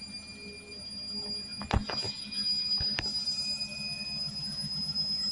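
Beko washing machine running with a steady hum and a high whine, and a few knocks and clicks around two and three seconds in.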